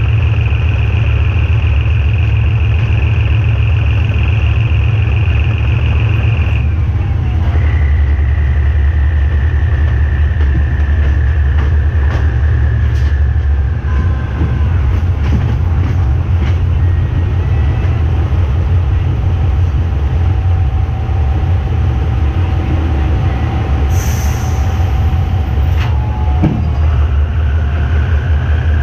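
GE diesel-electric locomotive running under way while shunting, its engine giving a heavy steady rumble. A high whine runs over it, dropping in pitch about seven seconds in and rising again near the end, with a few sharp clicks midway and a brief hiss a little before the end.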